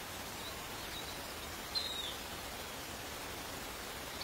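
Steady outdoor background hiss with a few short, high chirps from a small animal; the loudest is a brief falling chirp about two seconds in.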